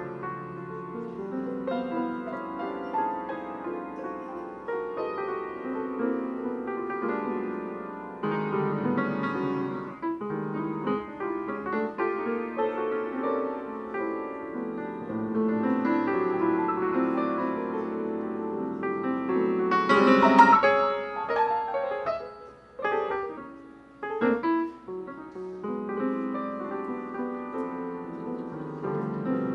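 Solo piano playing a slow, sustained piece in chords, with a loud struck chord about twenty seconds in and a couple of brief quiet dips just after.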